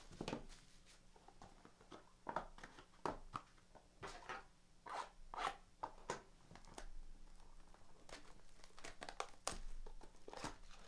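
Packaging of a box of baseball cards being opened by hand: plastic wrapper crinkling and tearing, with cardboard rustles and light taps coming in irregular bursts.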